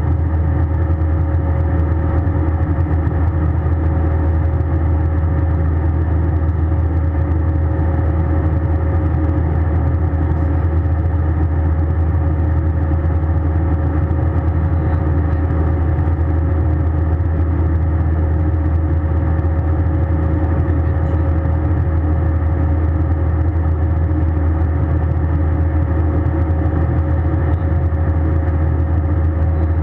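Steady jet engine and airflow noise heard inside an Airbus A320's cabin: a constant low rumble with a steady hum over it.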